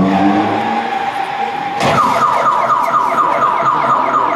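Car alarm sound effect: a steady tone, then a sharp click about two seconds in and a rapid warbling chirp repeating about six times a second.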